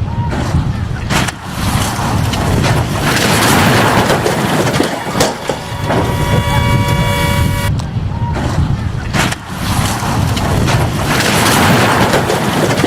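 Road vehicle running, with a heavy low rumble and road noise. A vehicle horn sounds steadily for about a second and a half past the middle, then cuts off.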